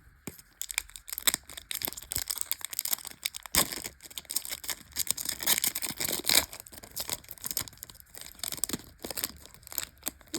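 Foil Yu-Gi-Oh! booster pack wrapper and cards being handled: irregular crinkling, rustling and sharp crackles, with some tearing of the foil as a pack is opened.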